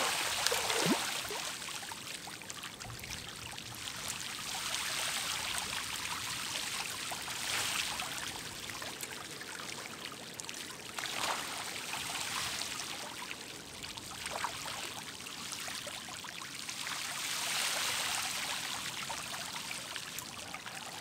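Water splashing and fizzing at the sea surface as trevally chase a dense school of baitfish, rising and falling in swells with a few sharper splashes.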